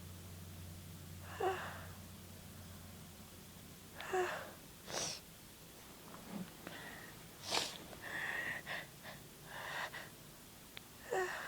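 A woman sneezing repeatedly: a string of about seven short sneezes and sharp gasping in-breaths, spaced a second or two apart.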